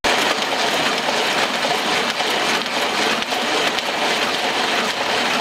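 Small sheet-fed offset printing press running, a steady fast mechanical clatter of its rollers and sheet feed.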